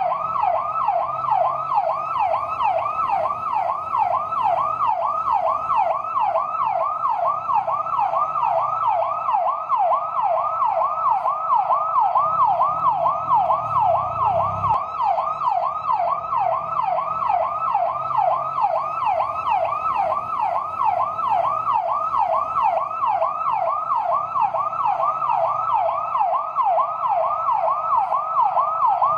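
Fire truck siren on yelp: a loud electronic wail sweeping rapidly up and down in pitch, several times a second, without a break.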